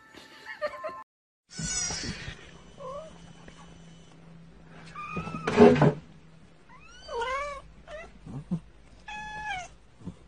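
Cats meowing: a run of short mews that rise and fall in pitch, with a louder, rougher cry a little past halfway and a quick cluster of mews near the end.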